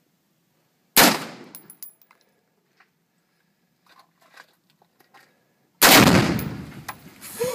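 A single sharp gunshot about a second in. About five seconds later a 4 lb Tannerite exploding target detonates in a much deeper blast that fades away over a second and a half.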